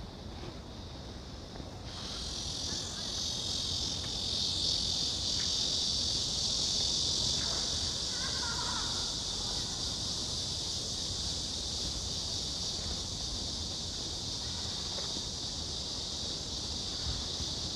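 Chorus of insects buzzing in a steady, shrill drone that swells in about two seconds in and holds to the end.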